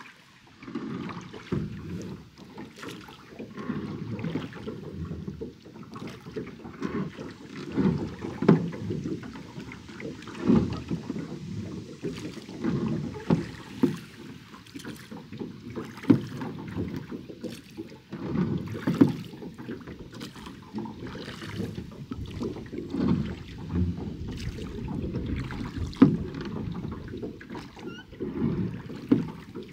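Oars of a small wooden-style rowing boat pulling through lake water in an unhurried rhythm, a stroke about every two to three seconds, with water splashing and sloshing and short knocks along with the strokes.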